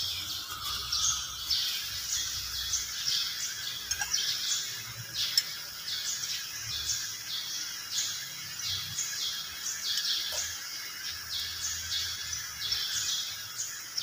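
A small bird chirping over and over, about two short high chirps a second, with a faint low rumble and a few light metal taps underneath.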